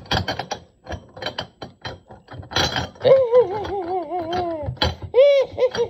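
Items in a recycling bin clattering and rattling as it is rummaged through: a quick run of clicks and knocks. About halfway through, a wavering pitched tone comes in, rising and falling several times, with a louder swell near the end.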